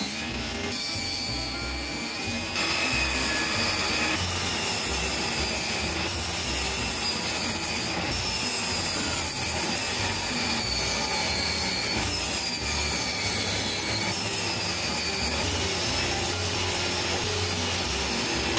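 Table saw running and cutting rubberwood, a continuous sawing noise with the blade's high whine sagging and recovering every few seconds as stock is fed through.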